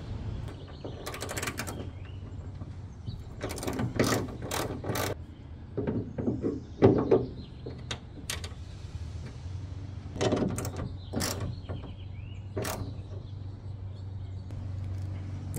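Hand socket ratchet clicking in about five short bursts as it tightens a 12 mm bolt holding a ditch-light bracket at the hood hinge.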